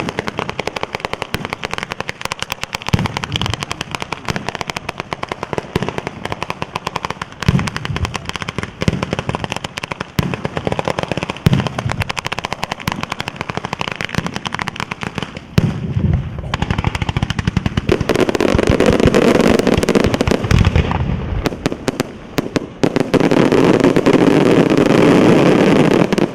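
Batteria alla sanseverese: long chains of firecrackers strung on wires and poles going off in rapid succession, a dense crackle of bangs with heavier booms mixed in. From about 18 seconds in, the bangs merge into a near-continuous roar.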